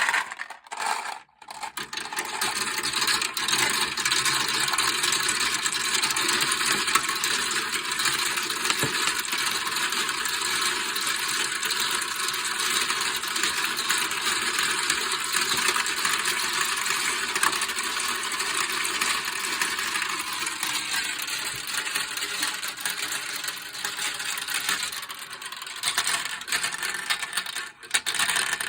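Many marbles rolling and clattering down a marble run, a dense, continuous stream of clicks and clinks. It starts after a brief pause about a second in and dips briefly near the end.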